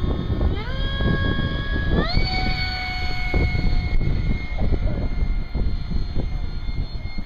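Electric ducted-fan whine of a radio-controlled Su-35 model jet, stepping up in pitch twice in the first two seconds as the throttle is advanced and then holding steady. Wind buffets the microphone throughout with a low rumble.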